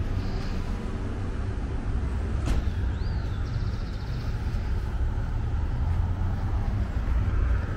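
Street traffic: cars running along a city avenue, a steady low rumble, with one sharp click about two and a half seconds in.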